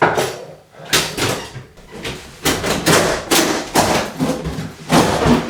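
An over-the-range microwave being jostled and knocked against its wall mounting and the cabinet above as it is worked loose: a series of sharp knocks and thuds, roughly one every half second.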